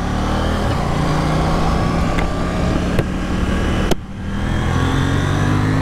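KTM 790 Duke's parallel-twin engine accelerating hard, revs climbing. About four seconds in it breaks off briefly for an upshift, then pulls up through the revs again.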